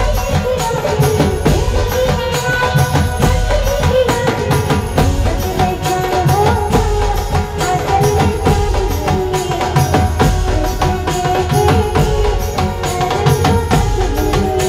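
Loud amplified Gujarati garba folk music from a live band: a steady, driving dhol drum beat under a wavering melody line.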